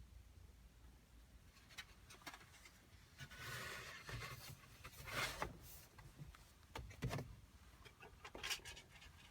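Faint rubbing and scraping of objects being handled, with a few light clicks scattered through.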